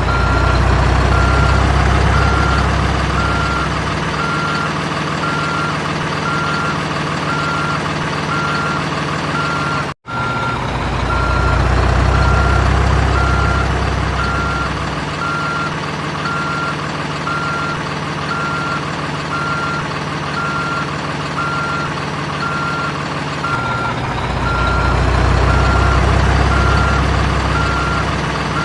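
Simulated heavy-machine sound from a toy RC excavator: a steady engine-like drone with a warning beep repeating about twice a second. The engine sound swells louder three times and cuts out for a moment about ten seconds in.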